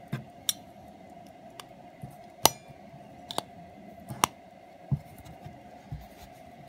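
Sharp metallic clicks and snaps from the covers of an 18K gold hunter-case pocket watch being closed, with the loudest snap, which rings briefly, about two and a half seconds in. A few duller knocks follow near the end as the watch is handled and set down.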